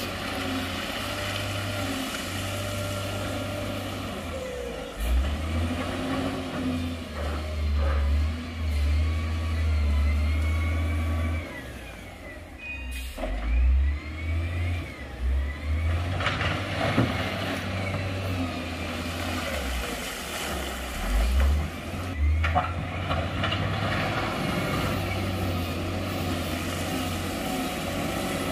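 Heavy diesel engines of dump trucks and a wheel loader running, revving up and easing off in uneven surges, with a few short knocks.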